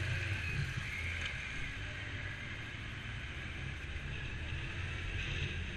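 Motorcycle engine running steadily under way, with wind and road noise on the bike-mounted microphone.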